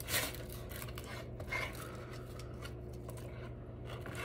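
Plastic-gloved hand handling food in a molded-fibre takeout tray: a sharp knock just after the start, then faint scraping and rubbing as a piece is dipped through salsa.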